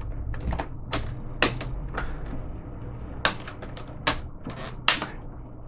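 Sharp plastic clicks and snaps, about a dozen at irregular intervals, as the snap-in plastic cover above a Dell Inspiron 1545 laptop's keyboard is pressed down and its clips seat.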